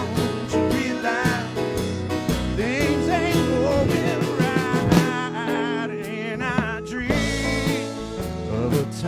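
Americana band playing an instrumental break in a country-style song: drums keeping the beat under sustained chords, with a lead melody wavering in pitch over the top.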